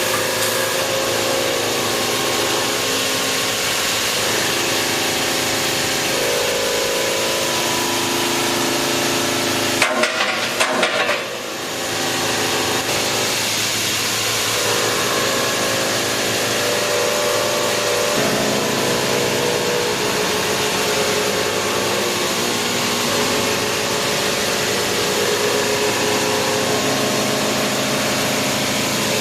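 CNC sheet-metal laser cutting machine at work: a steady hiss of the cut with motor whines that shift in pitch every few seconds as the head moves, and a short clattering burst about ten seconds in.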